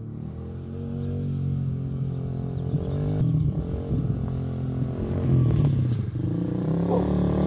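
Apollo ADR110-2 110cc pit bike's single-cylinder four-stroke engine running as it is ridden, its pitch rising and falling with the throttle. It grows louder toward the end as the bike comes closer.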